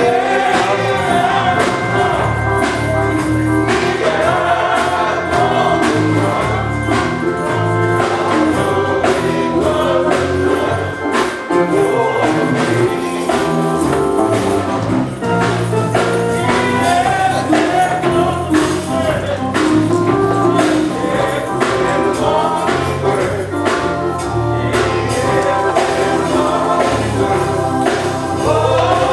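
Gospel choir singing with a band behind it, with bass and a steady percussion beat.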